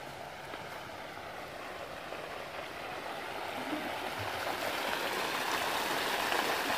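Steady rush of running water that grows steadily louder.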